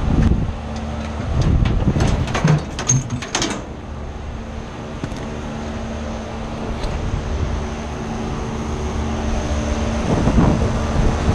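Heavy metal knocks and clanks for about two seconds, from roughly 1.5 s in, as a replacement-job compressor is wrestled loose and lifted out of a rooftop condensing unit's cabinet. Under them runs a steady mechanical hum of running equipment.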